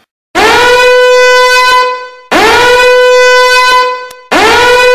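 Air horn sounding three long, loud blasts of one steady note, each swooping up in pitch as it starts and lasting nearly two seconds, with short gaps between.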